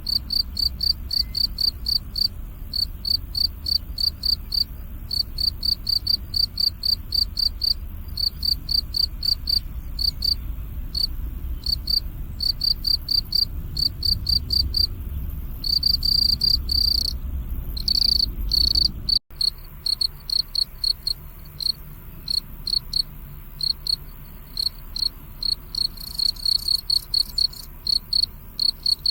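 Crickets chirping in a steady rhythm of short high chirps, about three a second, with a couple of longer unbroken trills past the middle. A low rumble sits underneath and eases after a brief break about two-thirds of the way through.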